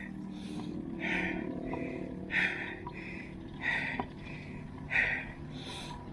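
A person breathing hard in a steady rhythm, a breath in and out a little more than once a second: the panting of a rider working hard uphill.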